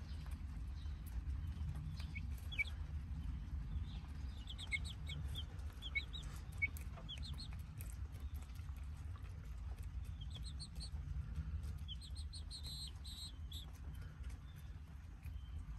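Chicks peeping in short high calls, in quick runs of several at a time, with a few sharp ticks of beaks pecking at a cob of corn. A steady low rumble runs underneath.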